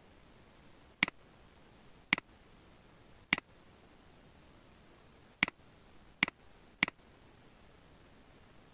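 Computer mouse button clicking six times at uneven intervals, sharp single clicks over a faint steady hiss.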